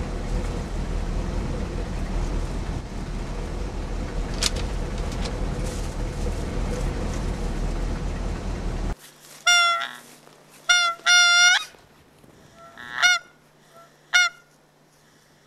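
Steady low engine rumble and hiss that cuts off abruptly about nine seconds in. It is followed by about five loud goose honks in short bursts over the next five seconds, the longest near the middle of the series.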